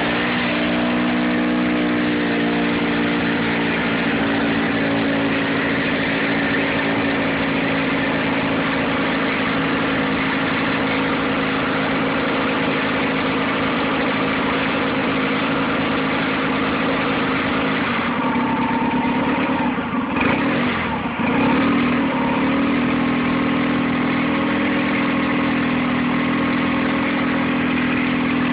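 Nissan 9.8 outboard motor running at a cold idle on its first start, with the choke on. The idle is rough: about two-thirds of the way through the pitch wavers and dips for a few seconds before it steadies again.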